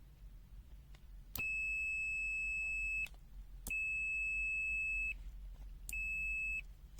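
ANENG SZ302 multimeter's continuity buzzer beeping three times, a steady high-pitched tone, the last beep shorter. Each beep starts with a light click of the test probes making contact: the meter is signalling a low-resistance path.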